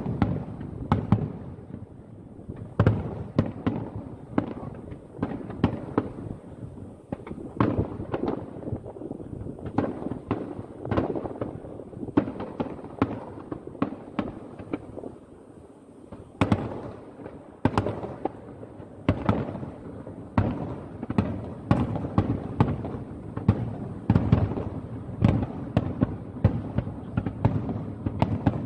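Aerial firework shells bursting in quick succession, many sharp booms overlapping and trailing off into rumbling echoes, with a brief lull about halfway through.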